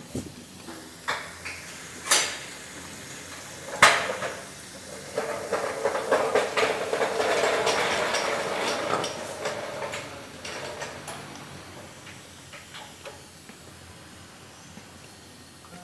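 A screwdriver and metal parts clinking and scraping against a car disc-brake caliper: two sharp knocks about two and four seconds in, then several seconds of dense scraping and rattling that fades out.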